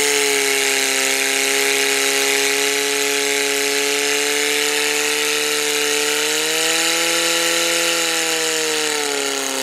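Portable fire pump's engine running flat out under load, feeding water to the hose lines: a steady, loud drone that rises slightly about six and a half seconds in and eases off near the end.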